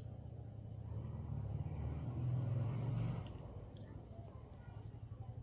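An insect trilling steadily, a fast and even high pulse, with a low rustling noise that swells and fades around the middle.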